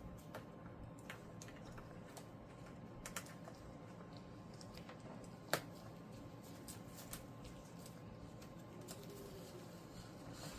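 Faint, scattered light clicks and ticks of wiring harness wires and a plastic connector plug being handled, with one sharper click about five and a half seconds in.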